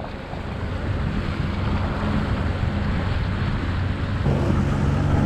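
Jet ski engine running with a steady low hum, wind buffeting the microphone and water noise around it; the engine grows louder about four seconds in.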